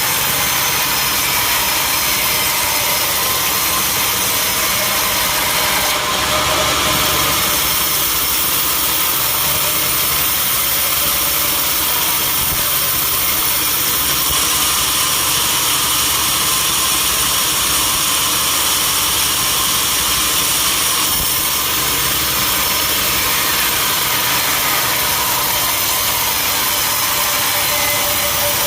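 A sawmill running steadily: a constant engine hum under a loud, even machine hiss, with a brief change about six seconds in.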